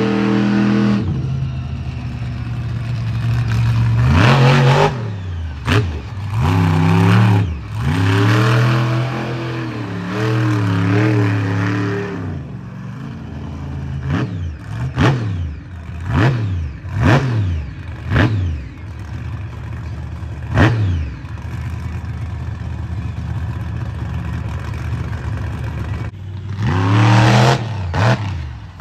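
Monster truck engine revving hard and dropping back again and again. In the middle it gives a run of quick, sharp throttle blips, about one a second. Then it runs lower and steadier for a few seconds before revving hard again near the end.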